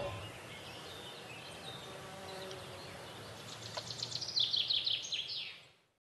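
Forest ambience with a faint steady hiss. A little past halfway, a songbird sings a fast trill of short notes that step down in pitch, ending in a falling flourish, about two seconds long.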